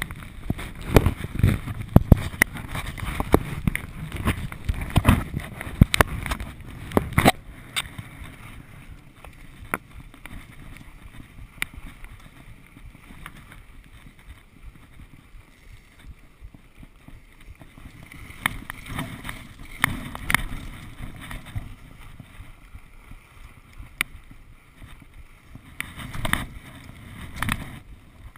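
Skis sliding and scraping over packed snow on a downhill run: a rough, continuous rushing hiss mixed with wind on the body-worn camera, rising and falling with the turns. Sharp knocks and bumps against the camera crowd the first several seconds, then only occasional clicks.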